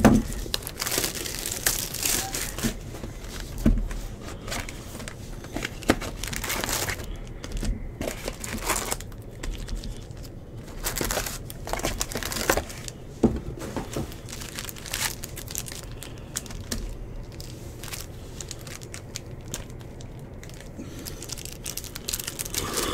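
Plastic shrink-wrap and foil trading-card pack wrappers crinkling and tearing as a hobby box is unwrapped and its packs handled, in irregular bursts of crinkling with quieter stretches between.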